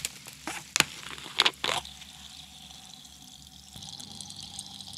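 Screw cap of a glass bottle of sparkling water twisted open close to the microphone: a few sharp clicks and short hisses of escaping gas in the first two seconds, then a faint steady fizz.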